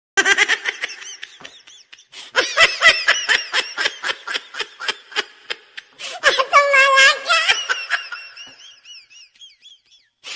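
Laughter: a long run of quick ha-ha pulses, a held laughing note about six seconds in, then a thin, high, wavering giggle that fades away.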